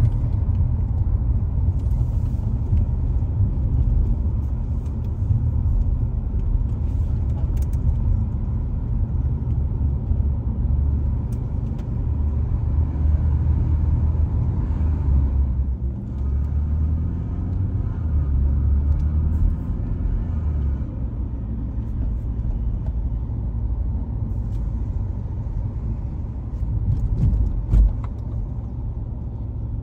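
Low, steady road rumble of a car driving slowly along city streets, with a single sharp knock near the end.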